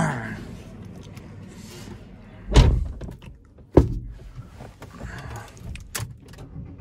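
A car door of a Ford Aspire shut with a heavy thump about two and a half seconds in, followed about a second later by a sharper knock, with a few lighter clicks near the end.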